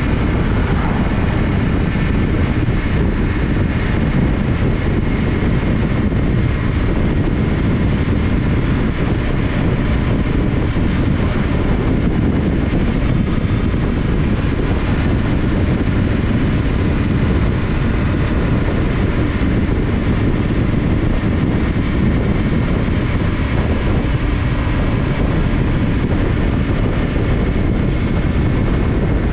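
Motorcycle cruising at a steady road speed: wind rushing over the microphone, with the Yamaha Ténéré 700's parallel-twin engine running underneath at an even pace.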